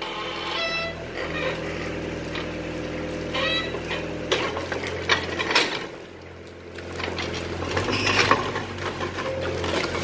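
Excavator's diesel engine running steadily, with sharp knocks and clatter from demolition debris and the bucket working; the engine drops back briefly about six seconds in.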